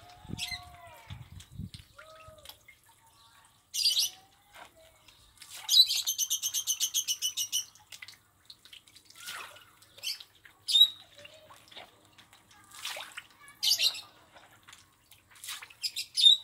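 Farmed lele catfish snapping at floating feed pellets, with short scattered splashes and gulps at the water surface. Bird chirps are mixed in, including a fast, even trill of about two seconds near the middle.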